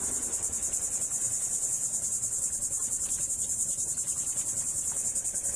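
A high-pitched insect chorus, trilling in a fast, even pulse.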